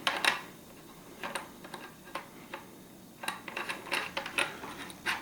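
Irregular small metallic clicks and ticks as the nipple is turned out by hand from the breech plug of a CVA Eclipse inline muzzleloader and the small parts and tool are handled. The clicks come in scattered ones and twos, thicker in the second half.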